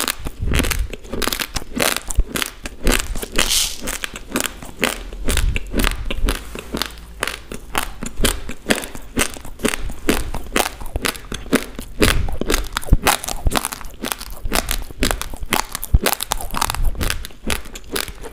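Raw basmati rice grains crunched between the teeth in rapid, continuous chewing, a dense run of sharp crisp cracks.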